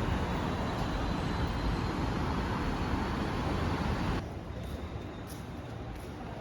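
Steady road and vehicle noise, a rumbling hiss like a moving car or traffic, cutting off abruptly about four seconds in to a quieter background with a few faint clicks.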